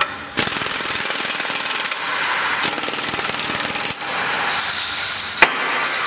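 Impact-type power tool hammering rapidly in several bursts with short pauses, working on a car's suspension ball joint hardware. A single sharp metallic knock stands out about five seconds in.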